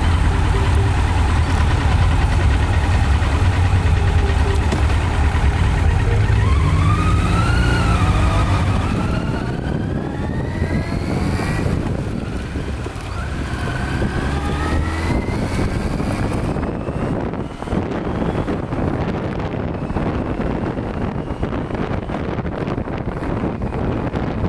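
Motorcycle engine running at a standstill with a deep rumble, then pulling away: its pitch climbs in several rising sweeps as it accelerates through the gears. In the later part wind rush on the microphone mixes with the engine at road speed.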